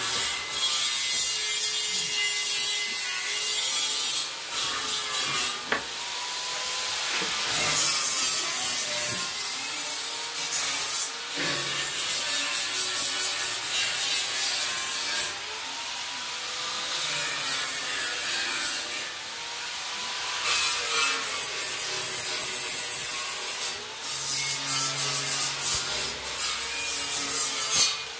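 Abrasive rubbing on wood, as in sanding a turned wooden railing: long scraping strokes of hiss that break off briefly every few seconds.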